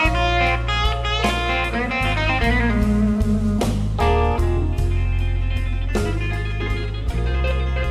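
Live electric blues band playing an instrumental passage: electric guitar lead over bass and drums.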